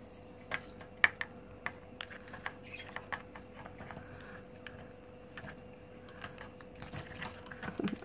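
Irregular light clicks and taps from a wire budgie cage as a hand reaches in with food, one sharper click about a second in.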